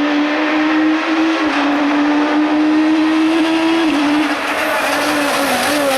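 Citroën AX Kit Car rally engine running hard at high revs, its pitch held level for several seconds, then easing off slightly and wavering near the end.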